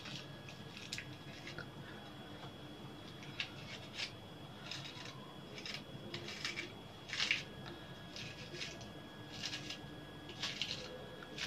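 Kitchen knife slicing through a crisp cabbage leaf held in the hand, in short crunchy cuts about one every half second to a second, at an uneven pace.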